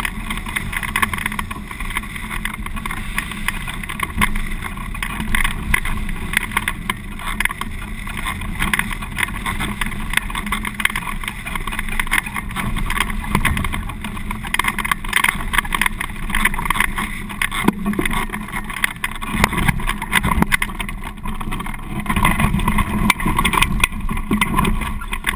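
Wind rushing over a hang glider's keel-mounted camera in flight: a steady, dense rush of airflow that flutters and buffets the microphone, growing a little louder near the end.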